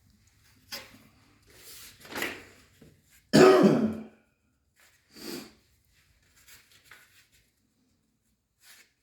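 A person clears their throat with a harsh cough just after three seconds in, the loudest sound here, among a few quieter short bursts.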